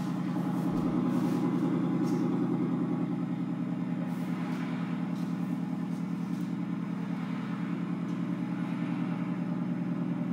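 Car engine with a loud exhaust idling steadily, its note pulsing fast and evenly.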